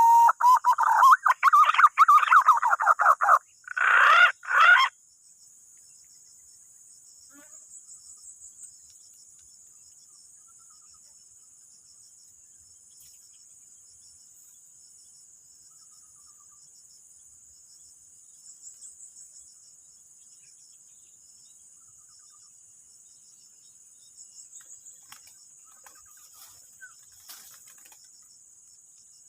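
Green pigeon (punai) calling: a loud run of warbling whistled notes for about five seconds, ending in a short higher burst. After that there is only faint steady insect chirring, with soft pulsing trills every few seconds.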